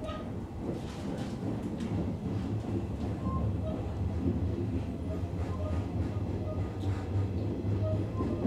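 JR 103 series electric commuter train running, heard from inside the driver's cab: a steady low hum of the motors and running gear, growing slightly louder, with scattered clicks of the wheels over rail joints.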